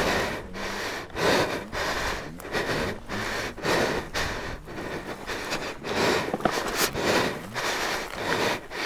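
A person breathing heavily and rhythmically, about one breath a second, close to the microphone: out of breath from hard exertion.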